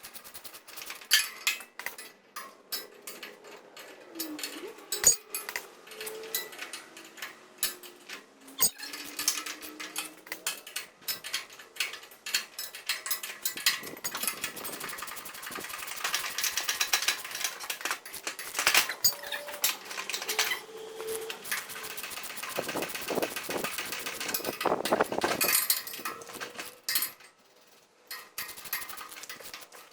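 Hand tools working on a tiller's bearing assembly: scattered metal clicks and knocks, with runs of rapid clicking as bolts are tightened.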